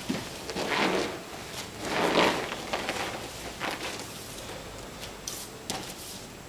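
A person in a hakama is thrown and falls on a foam exercise mat: two rustling thuds of body and cloth on the mat, about a second apart, the second the louder. Softer rustles and bare footsteps on the mat follow.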